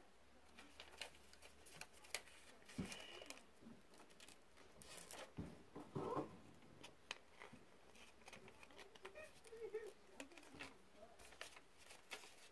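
Faint, scattered snips and clicks of scissors cutting a hole in a sheet of paper.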